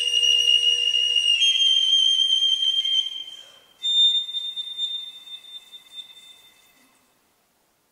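Solo piccolo playing high, sustained notes that step upward in pitch. After a short break, a last very high note enters about four seconds in and fades away to silence, closing the piece.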